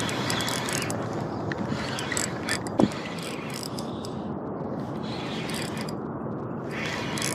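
Fishing reel ratcheting in several bursts of rapid clicks, with one sharper click about three seconds in, over a steady background noise.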